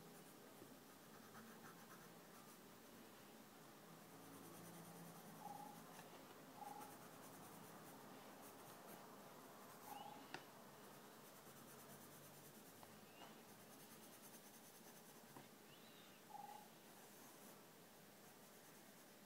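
Faint scratching of a graphite pencil sketching on sketchbook paper. A few short, faint chirps come and go over it.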